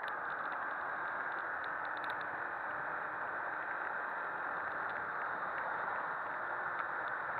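Steady rush of wind over the microphone of a Honda CBF250 motorcycle being ridden hard toward top speed, the engine buried under it and the noise growing slightly louder.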